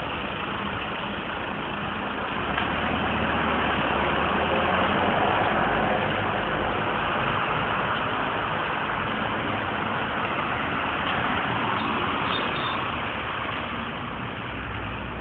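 Steady engine and road noise of a vehicle driving along a street, heard from on board; the rush swells a little about four to six seconds in.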